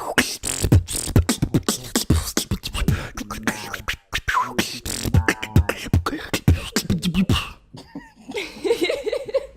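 Human beatboxing: fast vocal kick drums with deep falling thumps, sharp hi-hat and snare clicks, breaking off briefly about four seconds in and stopping about two seconds before the end, where a softer wavering vocal sound follows.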